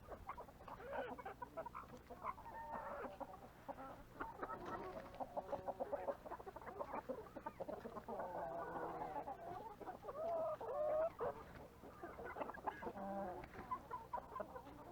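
A flock of chickens and roosters clucking and calling, many birds at once with short calls overlapping.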